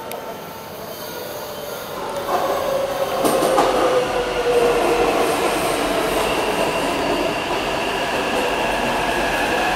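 Taipei Metro C381 electric train arriving and slowing along the platform: running and wheel noise swell about two seconds in, with a whine from the drive that glides down in pitch as the train brakes, then several steady high whines held over the rolling noise.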